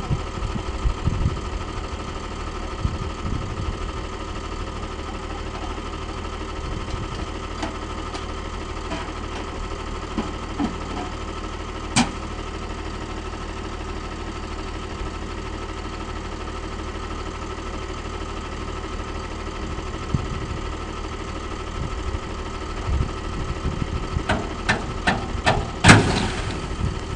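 Dump truck engine idling steadily, with a few sharp clicks and knocks over it. The loudest knock comes near the end.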